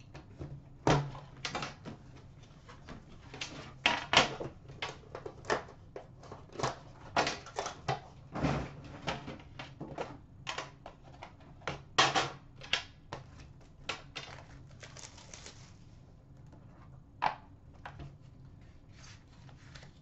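Hands unwrapping and opening a cardboard hockey card box: a quick, irregular run of clicks, taps and scrapes as the wrapper comes off and the lid and inner tray are handled, thinning out near the end.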